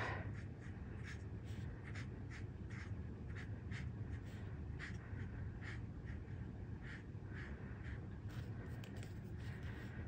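Felt tip of a Stampin' Blends alcohol marker stroking across cardstock: faint, short, scratchy swishes, about two a second, as petals are coloured in quick flicked strokes.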